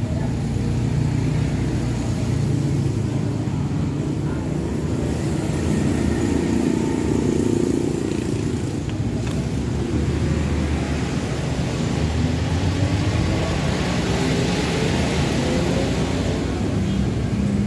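Road traffic: motor vehicles running past in a steady rumble, with one engine rising in pitch over the last few seconds.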